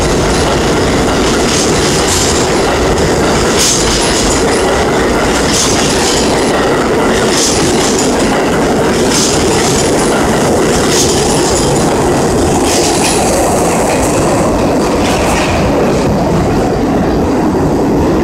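NYC Subway R32 train running past the platform at speed: a loud, steady rumble of wheels on rail, with sharp clacks about every two seconds. The high end fades near the end as the cars go by.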